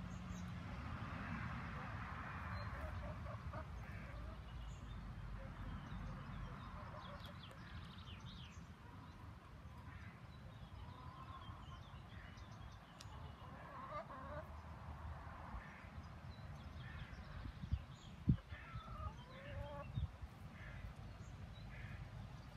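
Backyard hens making faint, scattered calls while they forage, over a steady low rumble. A few sharp thumps stand out near the end.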